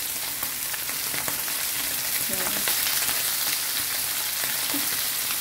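Beltfish pieces shallow-frying in hot oil in a pan: a steady sizzle with scattered small pops of spattering oil.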